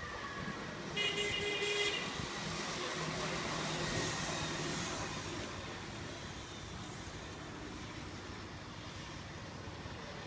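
A keirin bunch of track bicycles sweeps past on the velodrome banking: a rushing sound that swells and then fades. It comes just after a brief, loud ringing about a second in.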